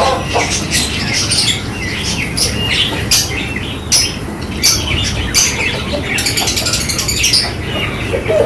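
A flock of fantail pigeons feeding on millet: quick, irregular, sharp clicks of beaks pecking at the grain, mixed with bird chirps and squawks, over a steady low background noise.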